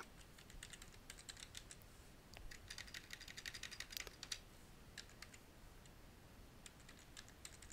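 Faint computer keyboard typing: short runs of keystrokes with pauses between, as a misspelled name is deleted and retyped.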